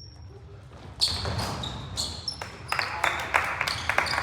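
Basketball play on a gym court: sneakers squeaking in short high chirps and a ball bouncing, busier and louder from about a second in.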